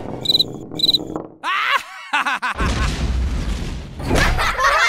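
Cartoon sound effects: two short high chirps, then a run of quick bouncing pitch sweeps, then a low rumbling boom.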